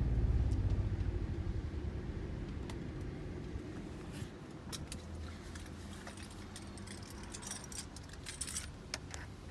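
Motorhome's onboard generator switched off, its low hum fading and pulsing out as it runs down over the first few seconds. Later a bunch of keys jangles several times, loudest near the end.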